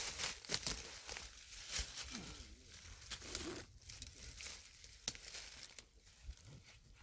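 Dry leaf litter, twigs and brush rustling and crackling irregularly as people handle and pull on a half-dug shrub.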